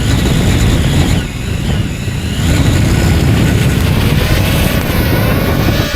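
FPV quadcopter's brushless motors and propellers whining in flight, the pitch rising and falling with the throttle, over a heavy low rumble.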